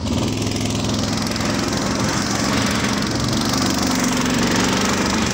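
Engine of a Rostin tracked swamp vehicle, louder right at the start, then running steadily as the vehicle drives along.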